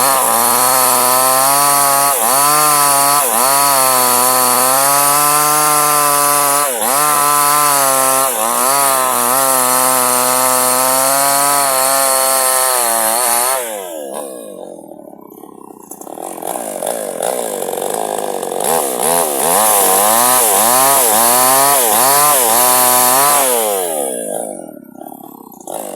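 A chainsaw cuts Medang wood near full throttle, its pitch sagging and recovering as the chain takes load. About halfway through it drops toward idle for a few seconds, then revs back up and cuts again before easing off near the end.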